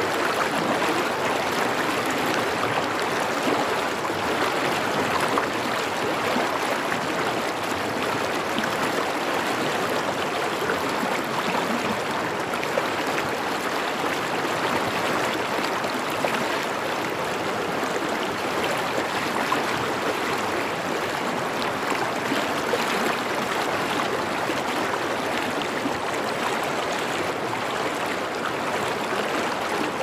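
Stream water rushing steadily over rocks, an even, unbroken rushing with no change in level.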